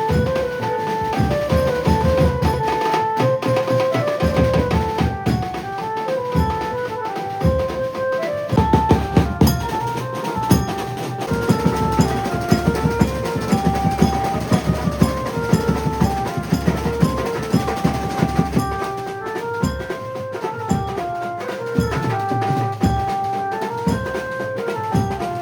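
Maharashtrian banjo band playing: an amplified Indian banjo (bulbul tarang) carries a stepping melody over fast, dense drumming.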